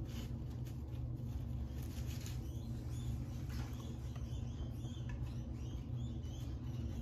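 Pet rats giving short, high, repeated squeaks, mostly in the second half, and rustling in wood-shaving bedding, over a steady low hum.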